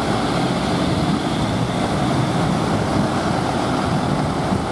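Steady rushing noise of motorcade vehicles driving past, engine and tyre noise mixed with wind on the microphone.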